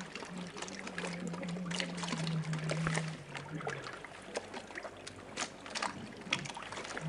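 Water splashing and trickling around wooden rowing boats, with many short sharp splashes. A low steady hum runs through the first half and stops a little past the middle.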